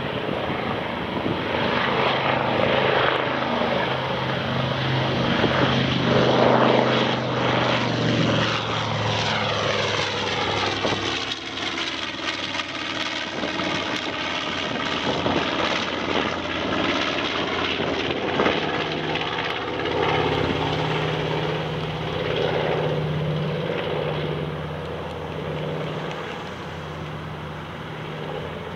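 The twin Wright R-2600 radial engines of a B-25 Mitchell bomber running at takeoff power as it climbs out and flies past overhead. The engine pitch drops about a third of the way in as it passes.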